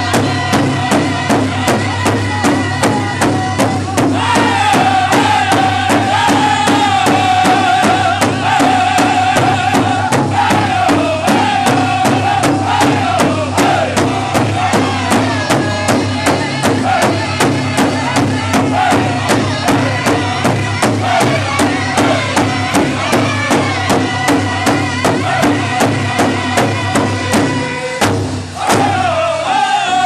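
A powwow drum group singing in high, wavering unison, with the big hide drum struck together in a steady, even beat. Near the end the drum and voices drop away briefly, then a high voice starts up again.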